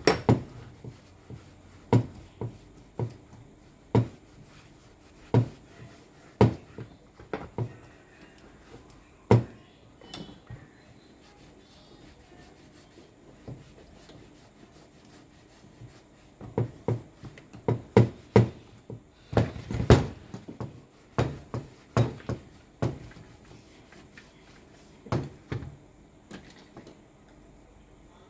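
Irregular knocks and clacks of hard objects being handled and set down, a few seconds apart at first, then a busier run of them about two-thirds of the way through.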